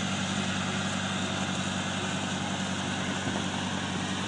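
Electric tracked wheelchair (Tank Chair) driving up a wooden ramp, its drive motors giving a steady hum.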